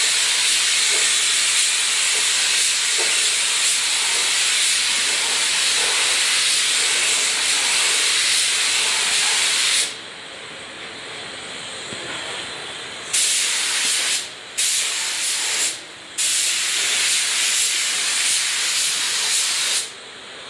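Compressed-air paint spray gun hissing as it lays on clear coat: one long steady pass stops about halfway through, then the trigger is pulled three more times with short gaps. A fainter hiss carries on in the pauses.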